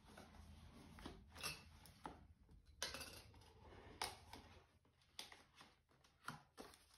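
Faint handling of a cardboard box as it is worked open: light scrapes and a handful of short clicks and taps spread unevenly through.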